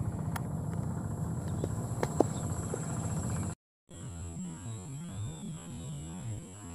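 A steady low hum with a few faint ticks, cut off abruptly about three and a half seconds in; after a brief dropout, a low wavering drone that sounds like soft background music.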